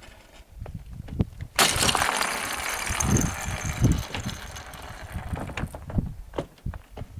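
Ice cracking and clinking in sharp, scattered clicks and knocks, with a denser crackling hiss from about a second and a half in that lasts about four seconds.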